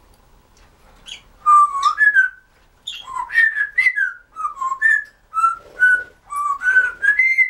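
Timneh African grey parrot whistling a string of short notes that glide up and down in pitch, with a few clicks in between, starting about a second and a half in.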